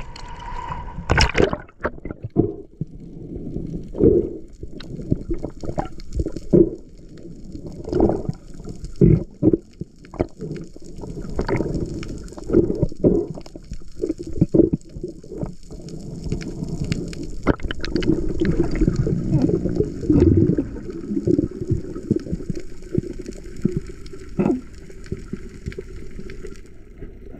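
Water sloshing and gurgling, with irregular knocks and splashes throughout.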